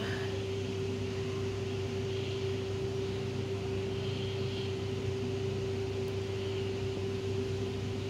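Steady mechanical hum with a constant mid-pitched tone and a low drone underneath, holding level throughout, like a household fan or motor.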